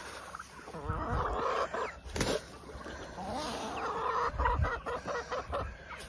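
Chickens clucking and calling as they gather at scattered feed, with low handling thumps and one brief sharp sound about two seconds in.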